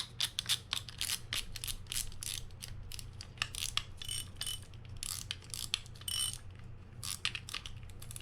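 Freshly serviced Fin-Nor Offshore 4500 spinning reel clicking as it is worked by hand: a rapid, uneven run of ratchet-like clicks. There are short metallic rings about four and six seconds in.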